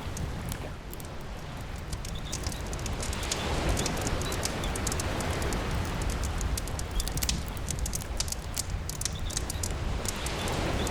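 Campfire crackling with scattered sharp pops over steady rain and the low rumble of the sea, with waves swelling up a few seconds in and again near the end.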